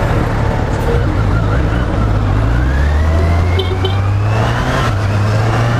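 Kawasaki Z800's inline-four engine on its stock exhaust running at low revs in traffic, heard from the bike with wind noise. A faint siren rises in pitch from about two to five seconds in.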